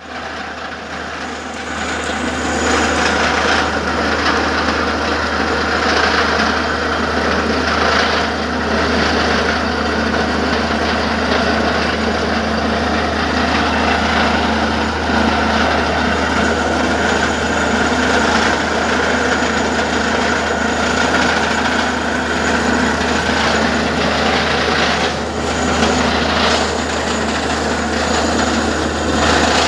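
Borewell drilling rig running steadily: a loud, continuous machine din over a low hum, building over the first couple of seconds and then holding level.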